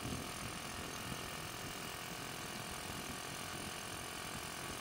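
Monkey bike's small single-cylinder engine running steadily on the move, a mechanical hum under road noise.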